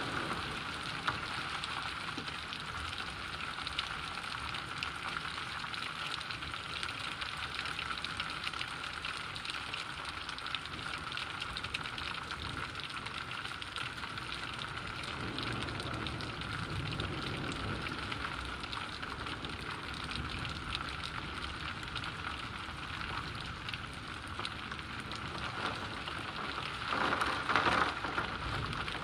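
Steady heavy rain: an even hiss of a downpour falling on trees and wet pavement. Near the end the noise swells louder for a second or two.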